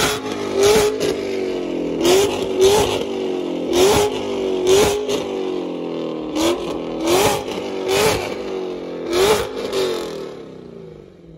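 A car engine being revved in quick, sharp blips, about a dozen of them, each one falling back in pitch before the next. It dies away near the end.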